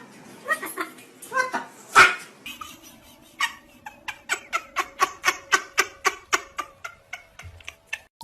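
A dog yapping: one loud sharp bark about two seconds in, then a quick run of short high-pitched barks, about four to five a second.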